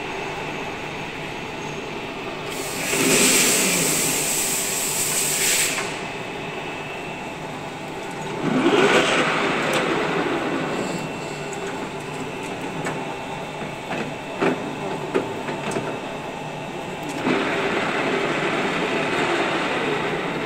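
16K20 screw-cutting lathe running, its spindle started and stopped three times with the control lever: the headstock gears whine up in pitch as the spindle spins up and slide down as it brakes, over a steady machine hum.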